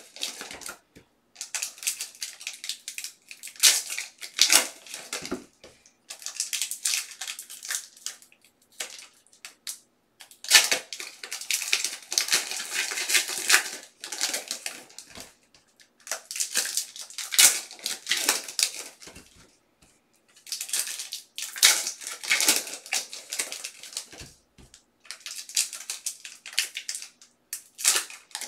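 Foil trading-card pack wrappers crinkling and tearing as packs are ripped open by hand, in irregular crackly bursts with short pauses between them.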